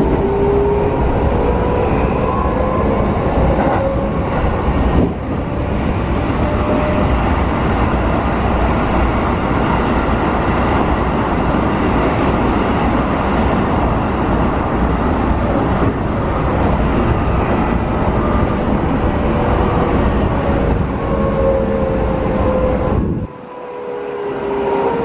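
Keikyu New 1000 series electric train heard from inside the car, with its Mitsubishi IGBT-VVVF inverter and traction motor whine rising in pitch over the first few seconds. Steady wheel-and-rail running noise follows. Near the end the whine returns, falling in pitch as the train slows, and the level drops briefly just before the end.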